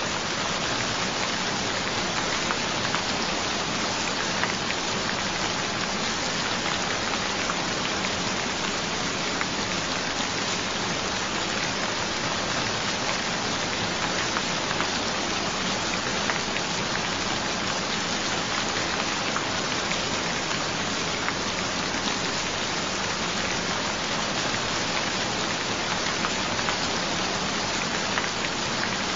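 Gentle steady rain: an even hiss of rainfall with scattered small drop ticks, unchanging throughout.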